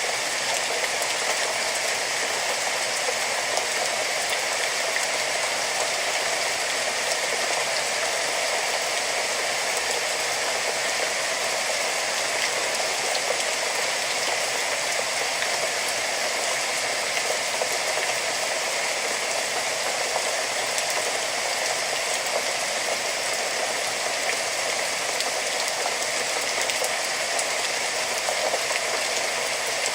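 Steady rainfall: an even hiss of rain with a fine patter of many small drop ticks, unchanging in level throughout.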